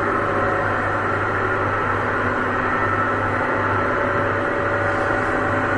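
2008 Hotpoint washing machine running on its spin cycle: a steady low hum with a few higher whining tones over a noisy whirr. The owner hears a rubbing sound from the drum and takes it for either a loose belt or worn drum bearings.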